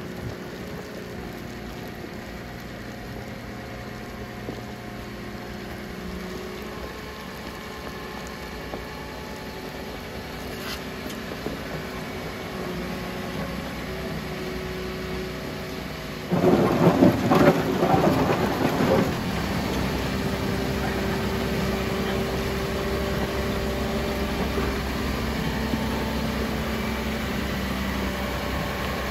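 Wheel loader's diesel engine running steadily while its dozer blade pushes gravel. About two-thirds of the way in comes a loud rush of rumbling noise lasting about three seconds, after which the engine runs louder and deeper.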